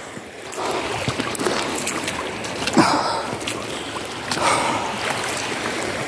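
Shallow, fast-flowing river running over a pebble bed: a steady rush of water that gets louder about half a second in.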